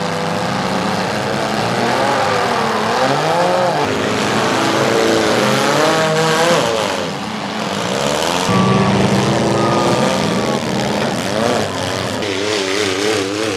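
Demolition derby cars' engines running loudly and revving, their pitch rising and falling again and again. The mix of engines changes abruptly about eight and a half seconds in.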